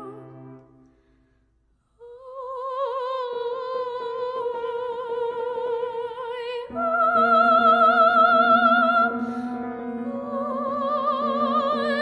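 Classical soprano singing sustained notes with wide vibrato, accompanied by grand piano playing repeated chords. After a short pause about a second in, the voice re-enters alone, the piano joins a moment later, and a louder, higher held note comes about halfway through.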